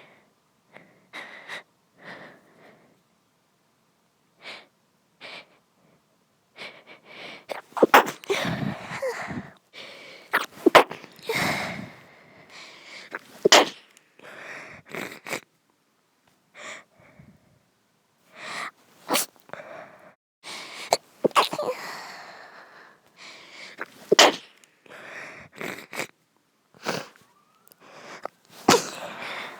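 Female sneeze attack: many sneezes in a row. The first few are faint, then they turn loud and come in quick runs, with sharp breaths between them.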